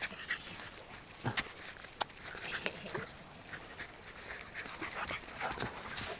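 Two dogs playing on gravelly sand: scattered short, irregular sounds of quick steps and brief dog noises.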